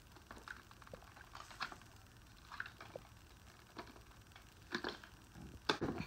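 Light, irregular clicks and taps of a hard plastic R2-D2 toy robot being turned over and handled, with a couple of louder knocks near the end.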